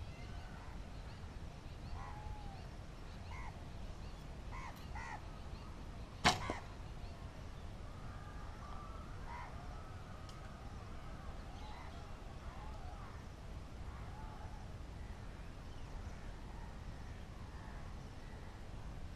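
One sharp snap about six seconds in, the string of a recurve bow released on a shot, over short bird chirps scattered throughout.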